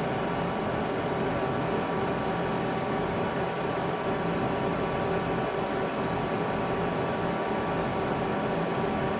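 Steady machine hum with several even tones over a noisy hiss, unchanging throughout.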